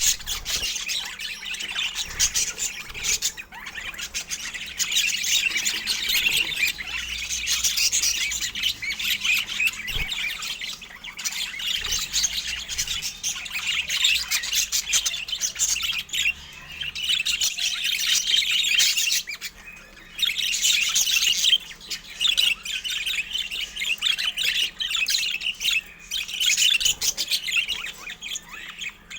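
Pet budgerigars chattering, with dense, continuous chirps and squawks and a couple of brief lulls.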